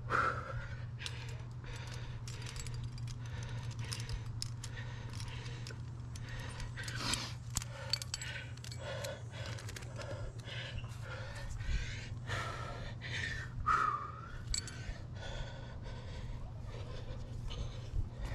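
A climber breathing hard, with a few heavy breaths, while the metal cams and carabiners of a trad rack clink and jangle in short scattered clicks.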